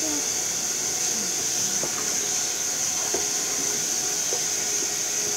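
Bathroom sink tap running steadily into the basin while an empty plastic butter tub is washed under it, with a few light knocks of plastic against the sink.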